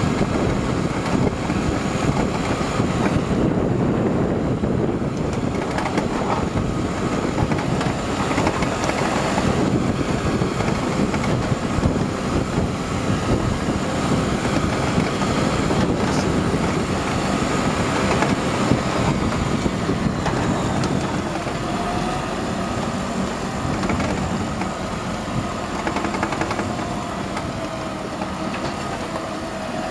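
Hydraulic boat trailer rolling over wet asphalt behind a farm tractor: a steady rumble and rattle of the rig, with the tractor's diesel engine running ahead.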